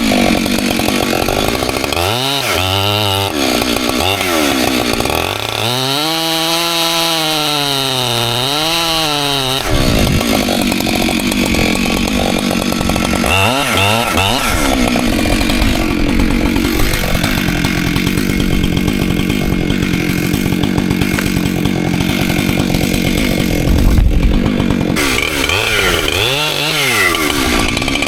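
Two-stroke Husqvarna chainsaw revving up and down between cuts and running at full throttle through a long cut in white oak logs. A heavy low thud stands out near the end.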